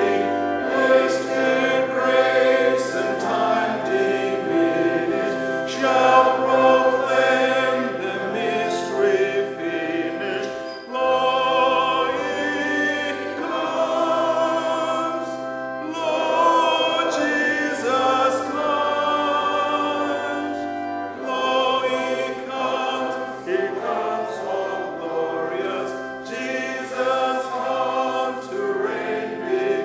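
A congregation singing a hymn together, sustained sung lines over long held low notes.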